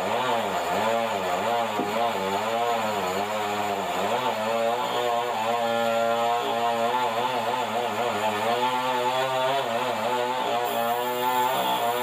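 Sawmill band saw headrig and its drive running with a steady mechanical drone. Its pitch swings up and down every half second or so for the first few seconds, then holds steadier.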